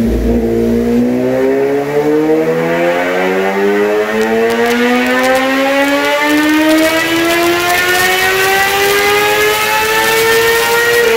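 2016 Suzuki GSX-R 750's inline-four, breathing through an M4 shorty slip-on and cat-delete pipe, making a wide-open-throttle pull on a chassis dyno: its pitch climbs steadily from about 3,600 rpm to about 11,000 rpm and levels off near the end. This is a baseline run on the untouched factory ECU.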